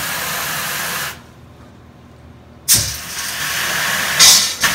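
Water and trapped air hissing and spraying out of an open pipe of newly pressurized plumbing into a bucket as the air is bled from the lines. The flow cuts off about a second in, then comes back with a sudden thump and surges louder twice near the end.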